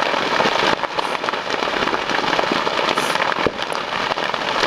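Brush and cedar-tree fire crackling and popping densely as the trees catch and burn.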